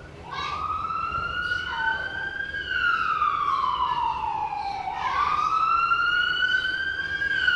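Emergency-vehicle siren in a slow wail. It starts a moment in, rises in pitch for about two and a half seconds, falls for about as long, then rises again.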